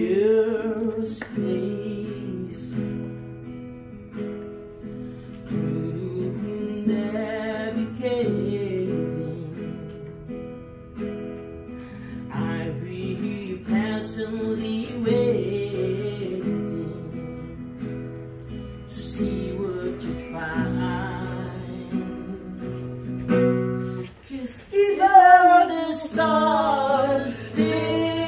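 A man singing a slow song with vibrato to his own strummed acoustic guitar chords. The singing gets louder and higher near the end.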